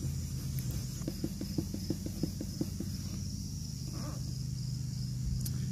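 Steel wool scrubbing faded plastic on a lawn mower's hood, in quick back-and-forth strokes, about six a second, from about a second in to near three seconds. Under it run a steady low hum and a steady high-pitched trill.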